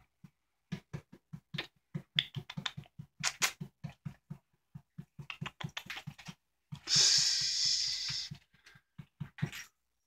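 A tabby cat moving about on top of a refrigerator right by the microphone: a run of irregular soft knocks and taps, with a rustle lasting about a second and a half past the middle.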